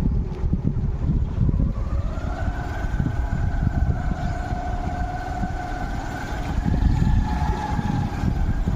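A motor vehicle running, with a constant low rumble and a steady droning engine tone that sets in about two seconds in.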